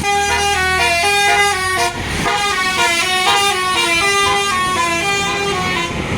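Tour bus's telolet "basuri" musical air horn playing a long run of quick stepped notes, a tooting melody that keeps changing pitch.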